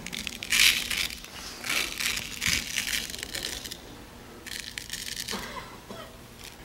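Small gravel rattling and shifting in a clear plastic bucket as a hand presses and smooths it down, in several short gritty bursts over the first five seconds.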